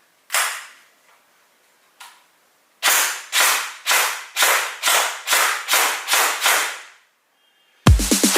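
Toy AR-15 blaster firing: one shot, a faint one, then a quick run of about nine shots roughly two a second, each with a short trailing echo.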